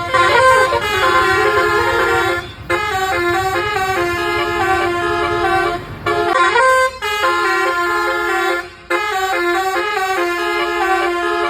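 Multi-tone 'basuri' telolet bus horn playing a melody in stepped notes, in phrases with short breaks and a quick rising swoop about halfway. A low rumble sits under the first half and stops about six seconds in.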